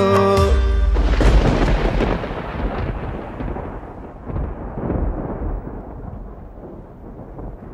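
The music's last held chord stops about half a second in, giving way to a long rolling rumble of thunder that swells a few times and slowly fades away.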